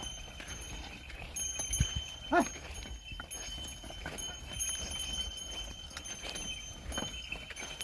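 Outdoor ambience of a pair of bulls ploughing a field: a steady high-pitched drone over a low rumble. About two and a half seconds in there is one short rising-and-falling call, of the kind a ploughman gives to urge on the team.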